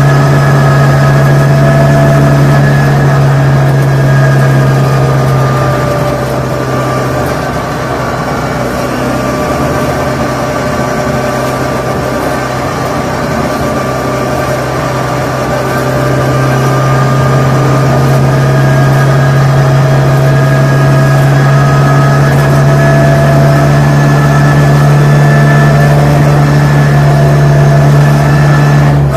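Car engine heard from on board, running at steady revs. It eases off slightly about a quarter of the way in and pulls back up a little past halfway.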